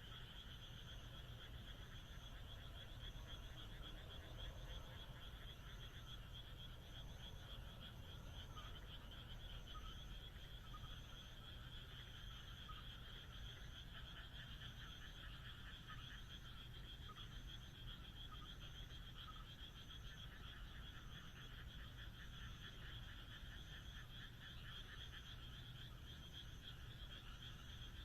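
A dense chorus of frogs calling at night, a continuous rapid pulsing trill with many overlapping voices. A faint high chirp repeats steadily, a little faster than once a second.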